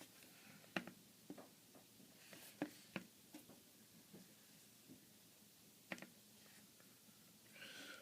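Near silence broken by a few faint, scattered clicks and taps from hands handling the Dell Inspiron 15z laptop's screen assembly and its rubber bezel.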